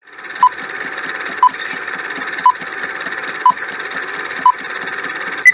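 Quiz countdown-timer sound effect: a steady hiss with rapid ticking and a short beep once a second, five times. A higher beep comes near the end.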